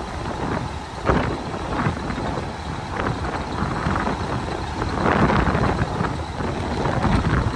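Heavy dump truck running, a steady rumble broken by a few knocks and clatter, about one and three seconds in.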